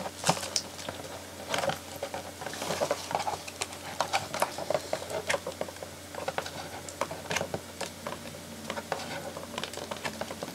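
Doll box packaging, cardboard and clear plastic, crackling in an irregular run of small clicks and rustles as fingers pry the doll loose from its box.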